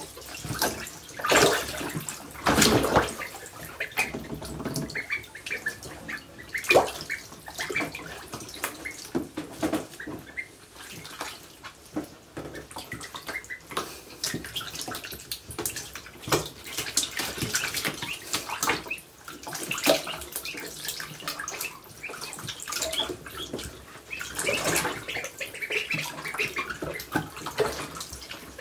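Ducklings splashing and dabbling in a shallow plastic tub of water: irregular bursts of splashing between quieter sloshing, the loudest about a second and a half, three seconds and seven seconds in.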